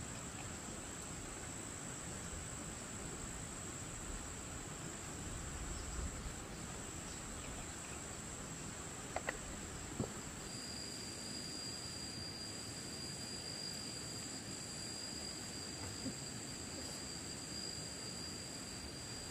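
Insects shrilling steadily at a high pitch, with a second, lower-pitched insect joining about halfway through. A couple of faint clicks come near the middle.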